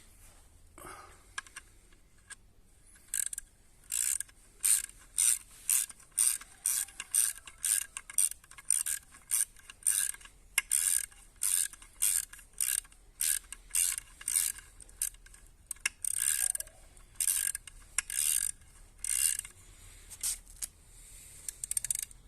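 Ratchet wrench worked back and forth in quick strokes, a burst of clicks on each stroke, about two a second. The strokes start about three seconds in and stop shortly before the end.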